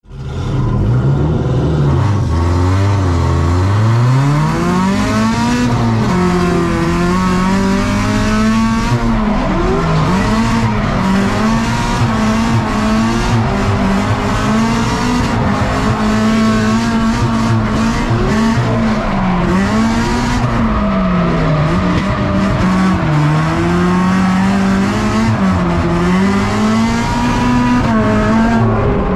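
Subaru BRZ drift car's engine heard from inside the cabin, revving hard and swinging up and down in pitch over and over through a drift run, with the tyres squealing. It starts low and climbs about four seconds in.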